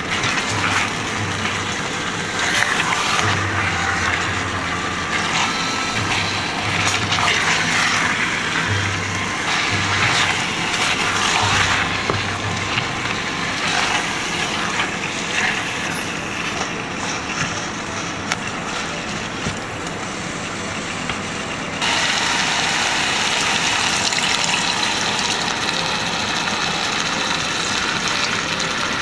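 Spice-coated pork pieces sizzling in a stainless steel pot while a spatula stirs them, with irregular scraping. About 22 seconds in, water starts pouring into the pot in a steady stream.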